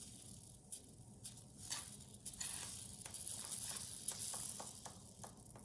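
Aerosol lubricant spraying into a lawn mower's bail control cable housing through a taped-on nozzle: a few short hisses and clicks, then a longer hiss in the middle that fades away. The lubricant is being forced down a binding, stiff cable to free it.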